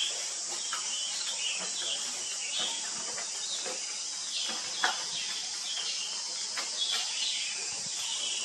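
Steady high-pitched drone of insects, with short chirping calls and a few brief clicks and rustles scattered through it.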